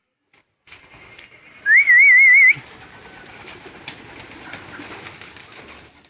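A loud warbling whistle, held for under a second and wavering up and down several times, called to summon homing pigeons to their feed. After it comes a fainter steady rustling with light taps.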